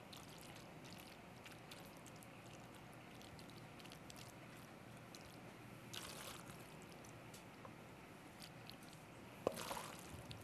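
Faint wet squishing of creamy macaroni and cheese being spooned out of a pot into a baking dish, with small clicks of the spoon. There is a louder scrape of the spoon against the pot about six seconds in and a short knock near the end.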